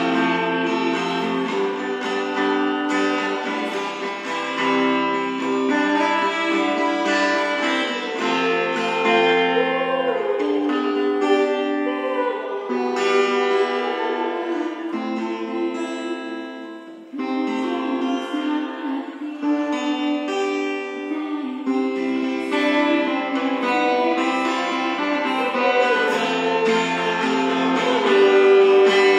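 An acoustic guitar accompanies a woman singing into a microphone, an acoustic cover of a pop song. The music dips briefly a little past the middle.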